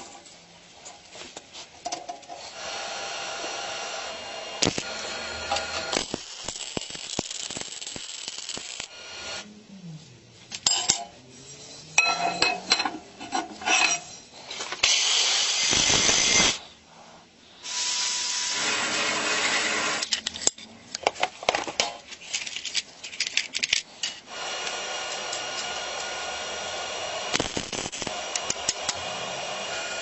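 Metalworking at a bench vise: sharp clinks and knocks of small steel parts, between stretches of a steady machine whine. About halfway through, an abrasive cut-off wheel cuts through a steel rod clamped in the vise, the loudest sound, ending suddenly.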